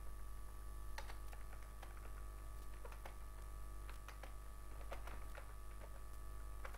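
Typing on a laptop keyboard: soft, irregularly spaced keystroke clicks, a few a second with short pauses.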